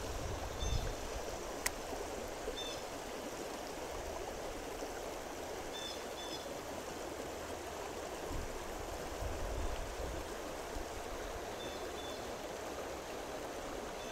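Shallow stream water rushing steadily over a low rock-and-log weir and through a riffle.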